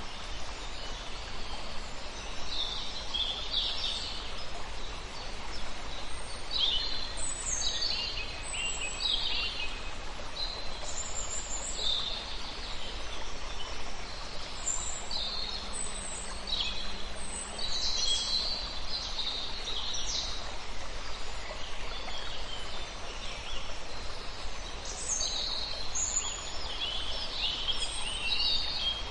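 Wild birds chirping and calling in short, quick phrases, one after another, over a steady background hiss.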